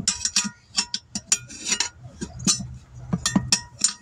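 A quick run of sharp metallic clinks and scrapes, about fifteen strikes with short ringing, from metal tire tools prying a small 10-inch tire off its steel rim.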